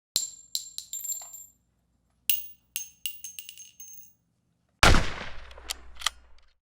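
Gun sound effects: a run of sharp metallic clicks and ringing pings, then one loud shot about five seconds in that dies away over a second or so.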